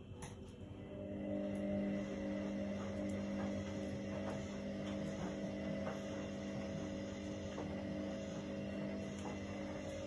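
Candy front-loading washing machine running: its motor and turning drum hum steadily, the hum coming in about a second in, with faint light ticks over it.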